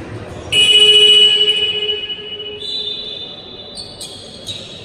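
A loud, shrill signal tone stopping play in a basketball game, starting suddenly about half a second in. It is strongest for about a second, then fades, and fainter, higher tones follow near the end.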